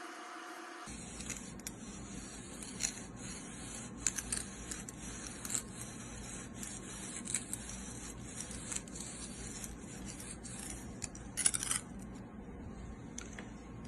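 A series of irregular crisp scrapes and clicks over a steady hiss, with the loudest scrape near the end.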